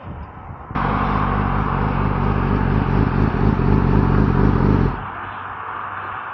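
2009 Yamaha R6's inline-four with a full Yoshimura exhaust running loud at a steady pitch, starting abruptly about a second in and cutting off abruptly about four seconds later, leaving a quieter steady rush of noise.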